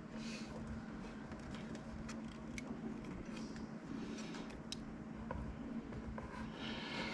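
Faint handling noises: scattered small clicks and ticks with brief rustling, as the parts of a resin printer are worked on by hand, over a steady low hum.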